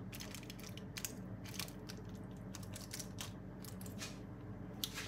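A spoon scooping thick, sticky hor mok fish curry paste into aluminium-foil cups: faint soft scrapes and scattered small clicks, with light foil crinkling.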